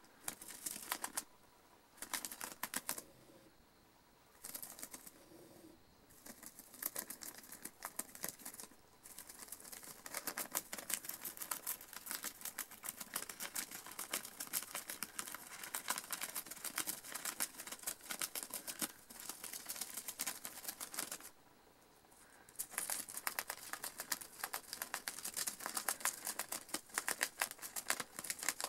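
A gerbil gnawing the edge of a sheet of lined notebook paper: rapid crisp clicking and crunching of teeth on paper, in long runs broken by several short pauses.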